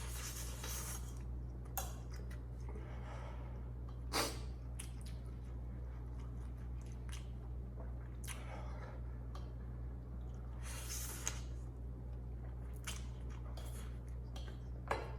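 A person chewing ghost pepper instant noodles, with several sharp hissing breaths a few seconds apart, breathing against the chilli heat, and a few sharp clicks. A steady low hum runs underneath.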